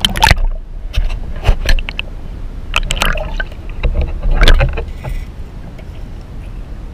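Underwater sound picked up by a submerged camera: scattered sharp clicks and knocks, a few in quick clusters, over a low rumble of moving water. The loudest knocks come about a second and a half and four and a half seconds in.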